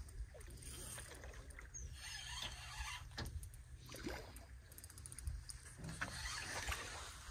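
Faint water lapping against the side of a metal boat over a low steady rumble, with a few light clicks.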